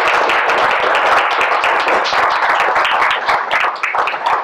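Audience applauding: many hands clapping in a steady, dense patter that thins slightly near the end.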